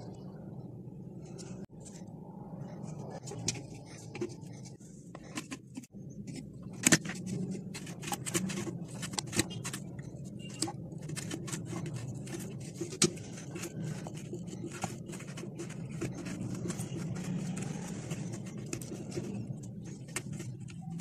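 A cucumber pushed across a snap-off cutter blade in a homemade plastic-case slicer, giving repeated short crisp clicks and scrapes from about six seconds in. A steady low hum runs underneath.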